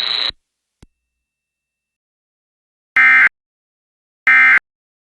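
Emergency Alert System end-of-message data bursts: two loud, identical short digital screeches about 1.3 s apart, the coded signal that closes the flash flood warning broadcast. A steady buzz cuts off just at the start, and the bursts come after about three seconds of silence.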